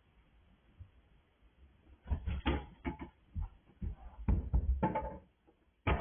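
An irregular series of dull knocks and thumps, starting about two seconds in and coming several times a second in clusters.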